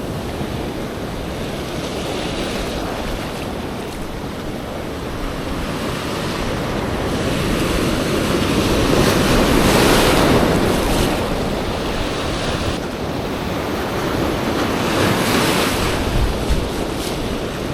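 Heavy ocean surf washing against a rock ledge, a continuous rushing wash that swells about halfway through and again near the end, with wind on the microphone.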